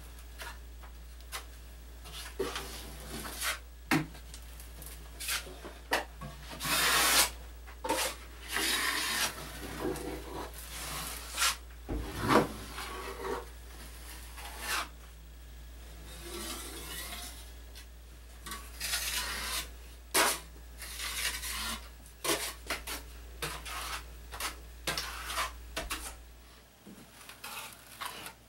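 Steel drywall knife scraping and spreading joint compound over metal corner bead in irregular strokes. A low steady hum underneath stops near the end.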